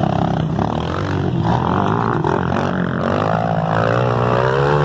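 Motocross bike engines running hard on the track, the pitch climbing as a bike accelerates from about three seconds in.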